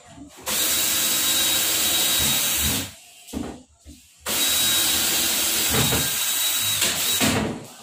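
A power drill runs at speed in two bursts of about two to three seconds each, with a short pause between them.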